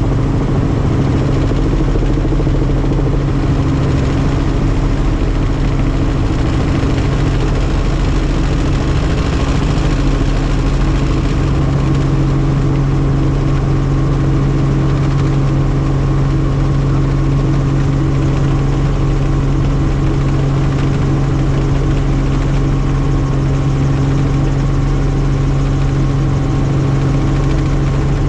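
Helicopter in flight: steady engine and rotor noise with a strong low hum.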